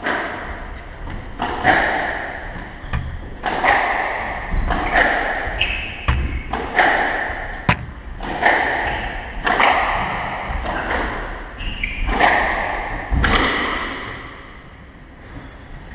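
Squash rally: the ball struck hard by racquets and smacking off the court walls about once a second, each hit echoing in the court, stopping about 14 seconds in.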